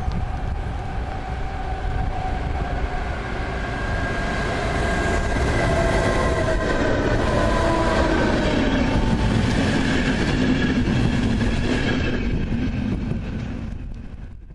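Double-deck electric passenger train approaching and passing close by at speed: a steady rumble of wheels on rail with an electric whine that drops in pitch as it goes by. The sound is loudest in the middle, fades near the end and then cuts off.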